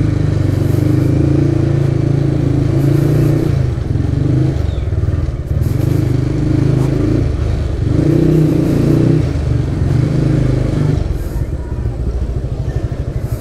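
Motorcycle engine running at low speed, its pitch rising and falling with the throttle. It eases to a low, uneven putter near the end.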